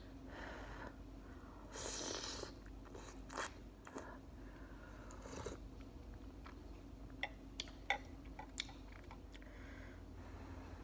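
Close-up eating sounds of a person chewing noodles, with a half-second slurp about two seconds in and several short sharp clicks later on.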